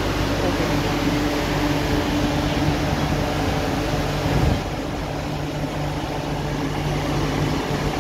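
MTR Island Line Q-Train standing at a platform, its onboard equipment humming in several steady tones. A thump comes about four and a half seconds in, and after it the sound is a little quieter.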